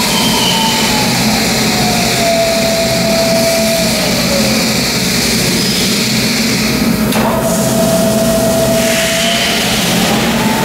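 Sharp EMV-50 vertical milling machine's 3-HP motor and variable-speed spindle running without cutting, with a shell mill in the spindle. A steady hum runs under a whine that falls in pitch over the first few seconds as the spindle slows, holds level, then rises again near the end as the spindle speeds back up.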